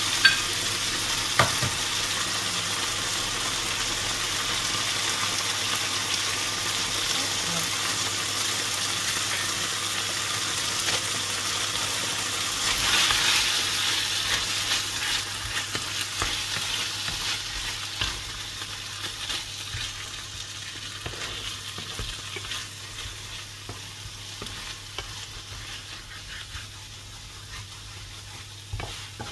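Pork, bitter melon and eggs sizzling in a nonstick frying pan while a wooden spatula stirs and scrapes through them, with two sharp knocks near the start. The sizzle dies down gradually over the second half.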